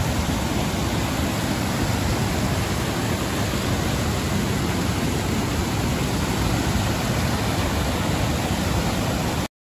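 Steady, loud rushing noise with no tone or rhythm, cutting in abruptly and cutting off abruptly near the end.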